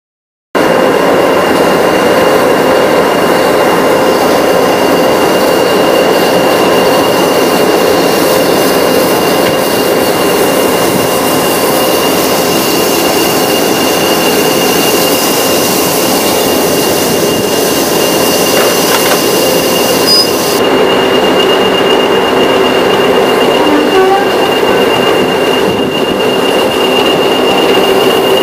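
Class 20 diesel locomotive D8188's English Electric eight-cylinder turbocharged engine running steadily, with a constant high turbocharger whistle over the engine noise.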